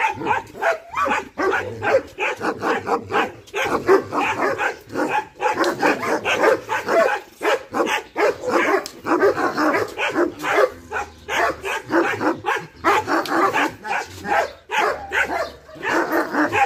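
Dogs barking and yipping in quick succession, a few times a second with no break.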